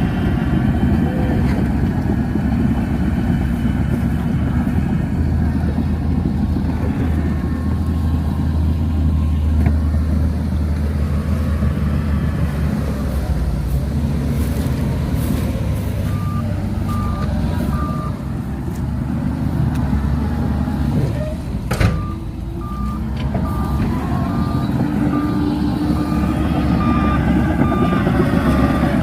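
Shantui DH17C2 bulldozer's diesel engine running steadily under load. Its reversing alarm beeps in evenly spaced pulses, briefly a bit past the middle and again through the last quarter, and a single sharp clank comes just before the second spell of beeps.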